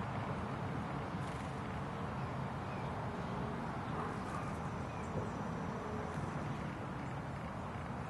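Steady outdoor background noise, with a few faint, short bird chirps now and then.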